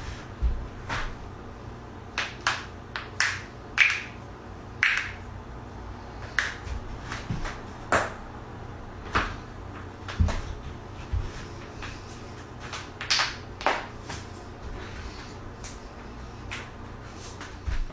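Human joints cracking: a long run of about twenty sharp pops, irregularly spaced, often a second or less apart, the loudest about four seconds in.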